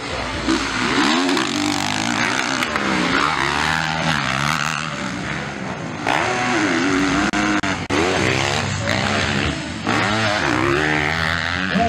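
Motocross dirt bike engines revving, their pitch rising and falling over and over as the bikes accelerate and shift. The sound changes abruptly about six and ten seconds in.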